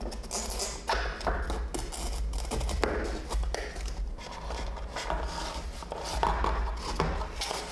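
Light, irregular scratching and tapping as hands mark and handle parts on a plastic boat hull, over a low steady hum.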